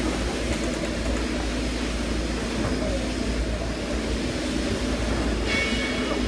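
Spindleless veneer peeling lathe running steadily as it peels pine into 0.3 mm face veneer, a continuous mechanical hum and rumble. A brief higher whine comes in near the end.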